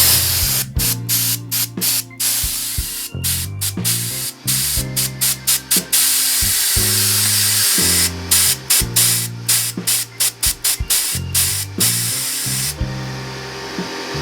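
Compressed air hissing out of a Porter-Cable BN125A 18-gauge pneumatic nailer with its air hose connected, a leak that keeps bleeding out, which the owner puts down to a bad gasket. The hiss cuts out briefly again and again and stops about a second before the end. Background music with a low bass line plays underneath.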